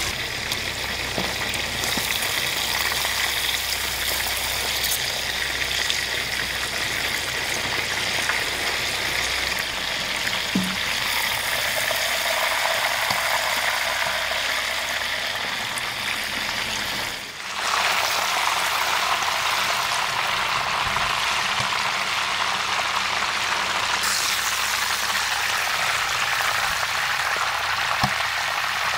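Beef steaks frying in deep, bubbling fat in a wide metal pan: a steady, loud sizzle. It briefly drops out about two-thirds of the way through, then carries on.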